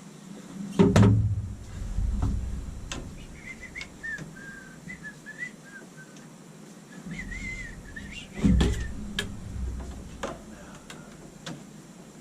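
A person whistling a wavering tune, set between two loud bouts of clunking and knocking from pipe and tool handling, one near the start and one about eight seconds in.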